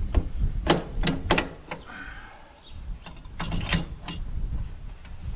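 Irregular metallic clicks and clinks of steel parts knocking together as gears and fittings are worked into a John Deere 2320's front axle housing, with a cluster of quick clinks between three and four seconds in.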